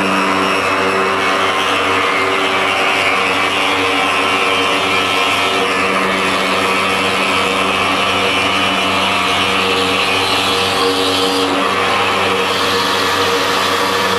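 CNC machine cutting andesite stone, running steadily: a loud, even whine with grinding noise over it.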